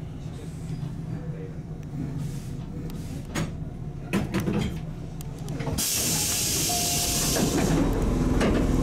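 Tobu 8000-series electric train standing at a station platform with a steady low hum. About six seconds in, a loud hiss of compressed air from its pneumatic equipment starts and lasts about three seconds.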